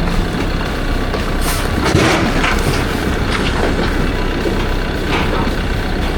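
Caterpillar bulldozer's diesel engine running steadily, with scattered knocks and bangs, about five of them, as the machine works over rock fill.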